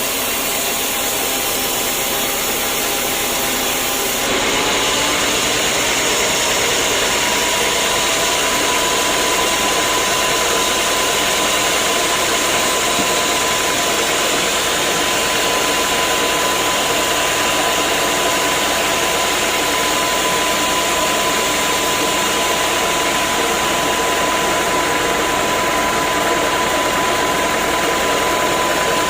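Sawmill machinery running steadily, a loud mechanical noise with a whine in it. About four seconds in it gets louder and the whine rises slightly in pitch, then holds steady.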